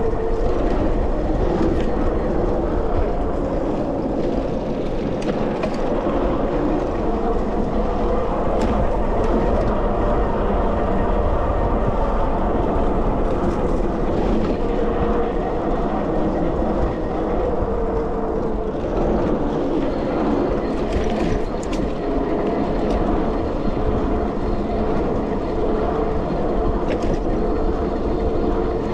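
Sondors MadMods electric bike rolling along at speed: a steady hum from its fat tyres and electric motor, with road rumble, wind on the microphone and a few faint ticks.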